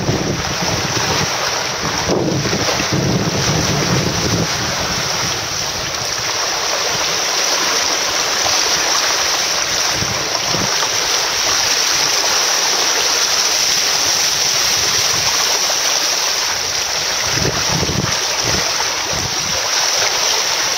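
Steady rush of wind and choppy sea water along a sailing catamaran's hull, with wind buffeting the microphone in low gusts near the start and again near the end.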